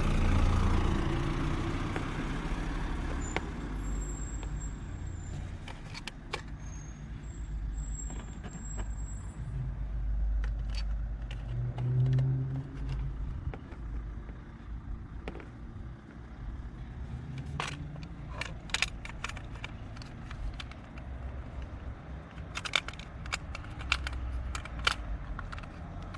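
Low rumble of road vehicles going by, with scattered sharp clicks and taps, several in quick clusters in the last third.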